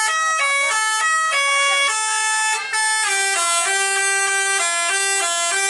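Tour bus telolet basuri multi-tone horn playing a melody of held notes that step to new pitches every fraction of a second, with a brief break about two and a half seconds in.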